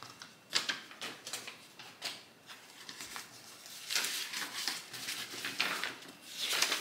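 Paper rustling and crinkling as an envelope and a folded letter are handled and unfolded. It comes in short, irregular rustles, louder from about four seconds in.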